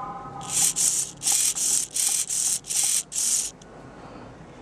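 A Futaba servo's small motor and plastic gear train, with the case open, whirring in a quick run of about seven short bursts as the servo is driven back and forth to test the freshly replaced gear. A brief steady whine comes right at the start.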